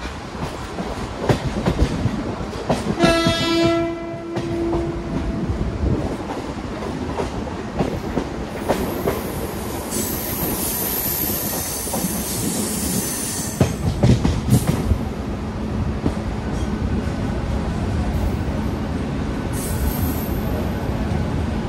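Mumbai suburban local electric train running into a station, its wheels knocking over rail joints and points. A train horn sounds for about a second around three seconds in, and a high squeal follows from about ten to thirteen seconds in. A steady hum comes in near the end.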